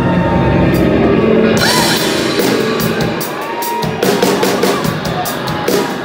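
Rock band playing live, heard from the audience: held guitar tones, then the drum kit comes in about a second and a half in with repeated cymbal hits. Crowd members shout over it now and then.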